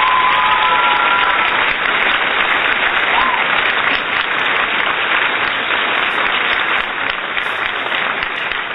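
Crowd applause and cheering, with a few whistles over it in the first second and a half and once more about three seconds in. The clapping eases off slightly toward the end.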